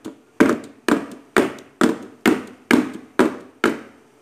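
A steel cake pan full of batter being tapped down on a hard surface again and again, about two taps a second, each knock ringing briefly. The tapping settles the batter and knocks out lumps and air before baking.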